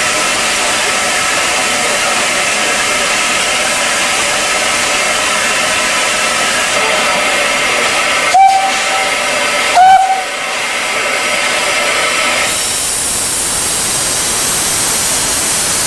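Narrow-gauge steam locomotive standing with steam hissing steadily. Two short whistle toots about a second and a half apart come just past halfway, and near the end the hiss turns harsher.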